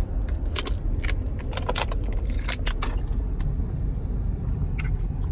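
Steady low road rumble inside a moving car. A scatter of short clicks and crinkles runs over it as someone drinks from a plastic water bottle.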